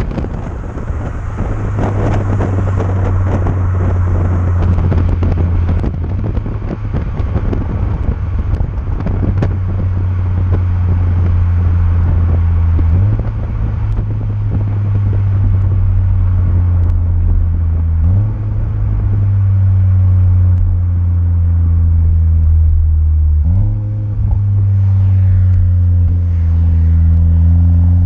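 VW Golf 7 GTI Clubsport's turbocharged 2.0-litre four-cylinder heard at the tailpipe through a Friedrich Motorsport 76 mm cat-back exhaust with front silencer: a steady low drone over road and wind noise. Three times (about halfway, two-thirds in and near the end) the revs jump suddenly and then slowly fall away, as with downshifts while the car slows.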